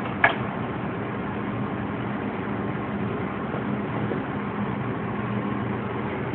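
Steady mechanical drone of commercial kitchen machinery running, with one sharp clink just after the start.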